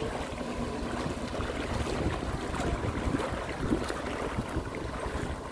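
Wind buffeting the microphone over choppy water, with a small jet ski's engine running steadily at a distance.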